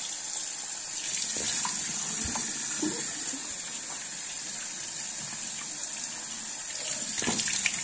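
Bathroom sink faucet running steadily, its stream of water hissing into the basin, with a few faint brief knocks along the way.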